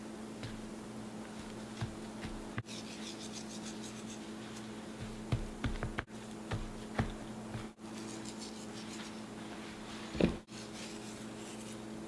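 Hands rubbing coarse kosher salt into raw steaks on a wooden cutting board: soft scratching and rubbing, with a few light thumps as the steaks are stood on edge and moved, over a steady low hum.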